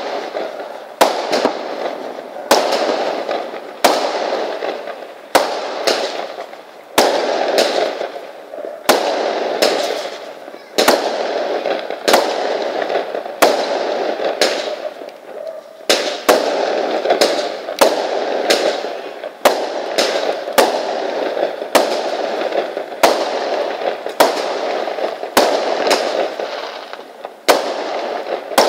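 Fireworks going off in a steady barrage: sharp bangs, one or two a second, each followed by a noisy tail that fades out.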